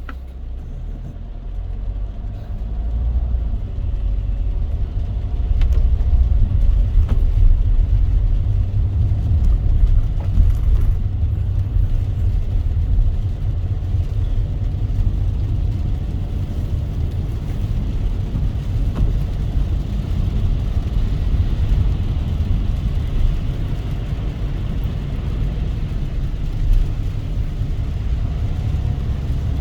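A car driving on a wet road: a steady low rumble of road and engine noise that grows louder over the first few seconds and then holds, under a fainter hiss of rain and tyre spray.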